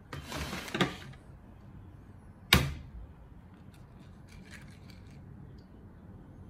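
A glass bottle of millet handled and set down into a basin, with a brief rustling scrape and a clunk in the first second and one sharp knock about two and a half seconds in. After it come a few faint light clicks of a plastic spoon stirring in a plastic cup.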